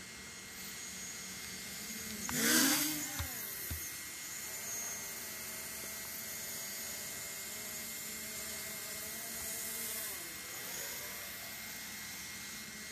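Quadcopter drone's electric motors and propellers whining. The whine peaks loudest with a quick sweep in pitch about two and a half seconds in, then holds a fairly steady pitch and dips near the end.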